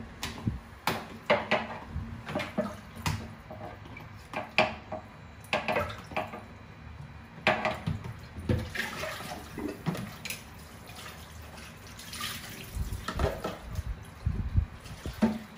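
Kitchen tap running into a stainless steel sink while chicken offal is washed, with irregular knocks and clatters of things handled in the sink. The knocks are thickest in the first half, and the running water grows more prominent in the second half.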